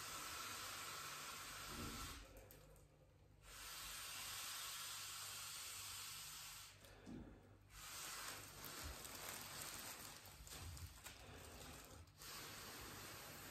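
Air hissing through a straw into the self-sealing valve of an Anagram foil (Mylar) triceratops balloon as it is inflated, in four stretches broken by short pauses a couple of seconds in, about halfway, and near the end. Light crinkling of the foil comes in the later stretches.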